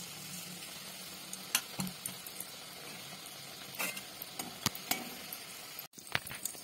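Rava appam batter balls deep-frying in hot oil: a steady sizzle with scattered sharp pops and crackles, briefly cutting out about six seconds in.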